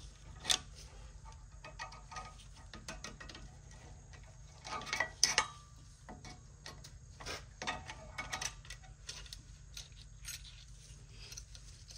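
Steel screwdrivers clicking and scraping against a rear brake caliper's spring clip as it is pried out, in irregular small metallic clicks and taps, busiest about halfway through and again a few seconds later.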